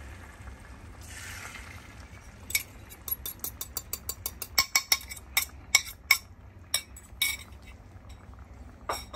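A metal fork clinking against a ceramic bowl: a quick run of sharp clicks starting about two and a half seconds in, as the last of the beaten egg is scraped out into the frying pan. Before that, a brief hiss of egg going into the hot greased pan.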